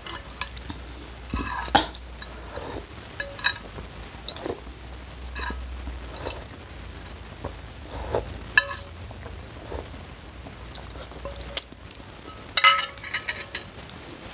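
Metal spoon and fork clinking and scraping against a ceramic bowl of noodle soup in scattered single knocks, each with a short ring. A quick run of clinks comes near the end as the cutlery is set down in the bowl.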